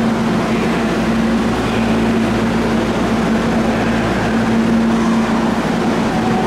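Hankyu commuter train standing at an underground subway platform with a steady low hum from the train over the platform's noise, while its doors slide shut.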